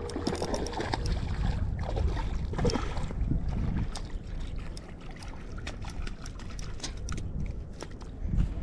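A hooked trout splashing and flopping in the shallows at the water's edge as it is landed, with scattered sharp clicks over a steady low rumble.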